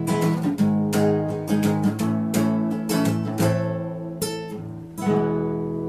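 Acoustic guitar strummed in a xote rhythm as the song's instrumental ending, closing with a final chord about five seconds in that is left to ring.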